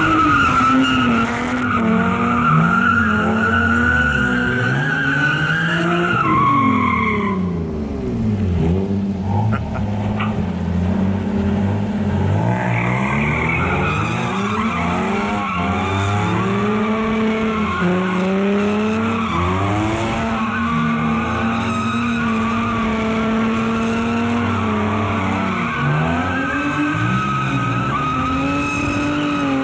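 Two cars drifting, an HR-swapped Infiniti G35 and a Nissan 350Z: the engines rev up and down over and over while the tyres squeal. The squeal stops about seven seconds in and returns, higher, about five seconds later, with the engines revving on underneath.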